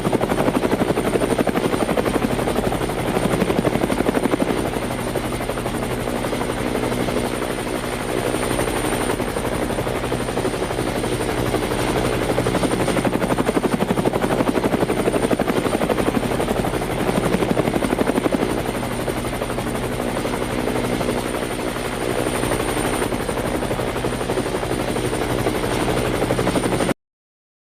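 Helicopter rotor and engine running steadily, with a rapid, even beating of the blades over a constant drone. The sound stops abruptly near the end.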